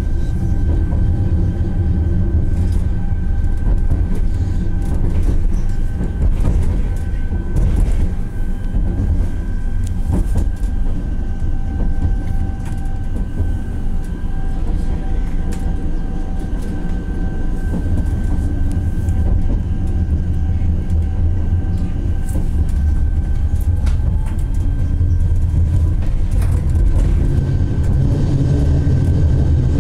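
Cabin sound of an Alstom Citadis Dualis tram-train running along the line: a steady low rumble of wheels on rail, with a constant faint whine over it and occasional light clicks.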